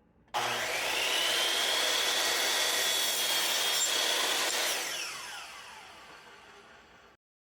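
Electric power saw cutting wood: the motor's whine rises as it spins up, holds steady through the cut, then falls away as the blade winds down, and the sound cuts off suddenly near the end.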